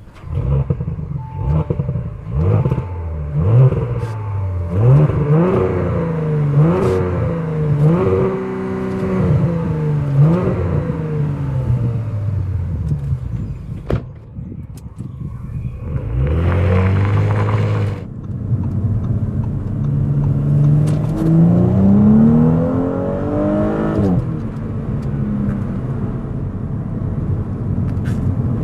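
Audi S5 Sportback engine accelerating hard through the gears, its pitch climbing and dropping back at each upshift several times in quick succession. Later it makes one longer rising pull that cuts off suddenly, then settles into steady running at speed.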